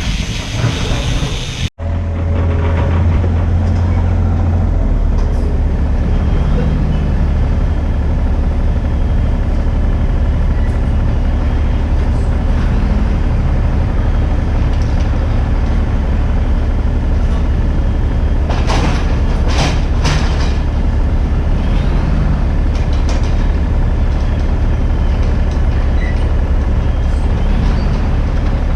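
Mini excavator's diesel engine running steadily with a deep, even hum. A few sharp metallic clanks come around two thirds of the way through.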